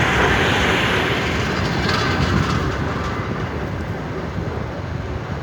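Electric commuter train moving along the tracks with a steady rushing noise that slowly fades away.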